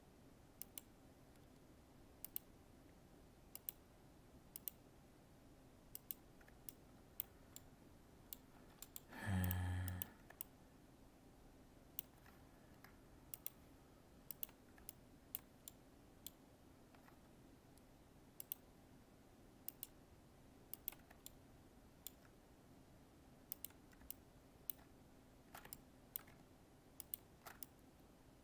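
Faint computer mouse clicks, singly and in quick pairs, every second or so over a faint steady hum. About nine seconds in there is a short low sound, about a second long, louder than the clicks.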